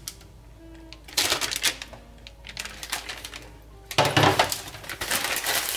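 Metal clattering and scraping of a utensil against a metal sheet pan as pan juices are spooned and scraped onto a roast chicken, in short bursts with the loudest clatter about four seconds in.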